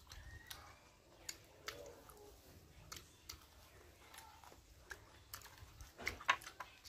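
Faint chewing of spicy papaya salad, with scattered soft clicks and smacks, a few louder ones about six seconds in.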